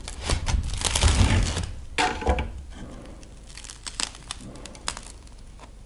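Serrated bread knife sawing through the crunchy, crisp crust of a freshly baked sourdough loaf: a dense crackling crunch for the first second and a half or so, then a few sharp cracks and fainter clicks as the cut finishes.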